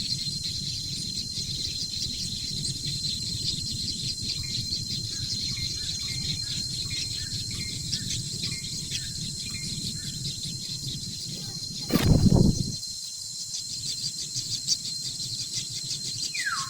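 Outdoor insect chorus: a steady high drone with fast ticking, over which a bird gives short repeated chirps. A brief loud thud comes about three-quarters of the way through.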